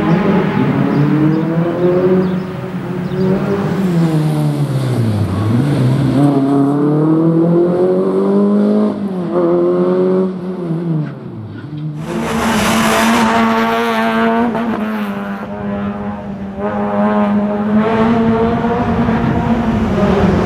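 Renault Clio slalom car's engine revving hard through the gates. The pitch drops deeply twice as it brakes and climbs back up, then about twelve seconds in a louder, steadier high engine note with the revs quickly rising and falling.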